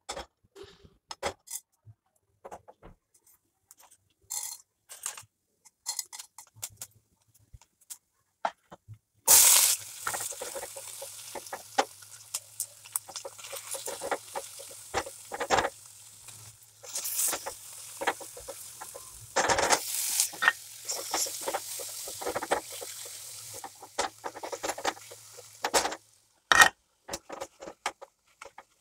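Sliced onions and chutney ingredients frying in hot oil in a stainless steel pan. A sizzle starts suddenly about a third of the way in and cuts off a few seconds before the end, with a plastic spatula scraping and tapping the pan as they are stirred. Before the sizzle there are only scattered light clicks.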